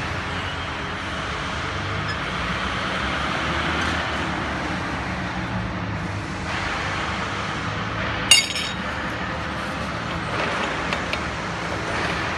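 Steady drone of workshop machinery with a low hum. About eight seconds in, one sharp metallic clink rings briefly, the steel hook spanner knocking against the steel ring and cup.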